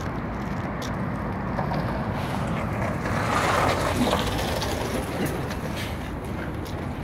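Blue city bus pulling in to the stop and passing close alongside, its running and tyre noise swelling to the loudest about three to four seconds in, then settling as it comes to a halt.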